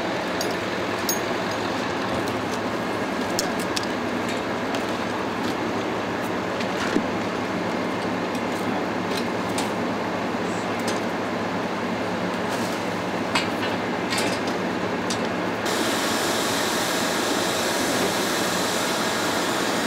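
Fire hose spraying water in a steady rushing hiss over a low running hum, with a few scattered light clicks; about 15 seconds in the hiss turns brighter and fuller.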